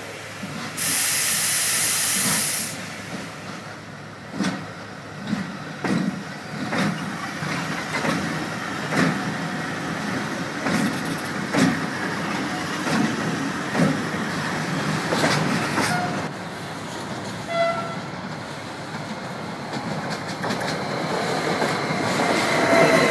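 Electric-hauled container freight train passing close by. A loud hiss lasts about two seconds near the start. It is followed by the steady clatter of wheels knocking over rail joints as the wagons roll past.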